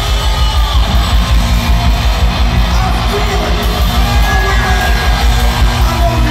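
Rock band playing live at high volume: a heavy, steady drum beat under electric guitar.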